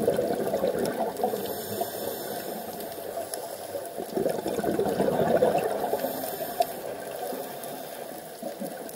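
Scuba divers' exhaled air bubbling out of their regulators underwater: a bubbling surge at the start and another about four seconds in, with quieter bubbling between.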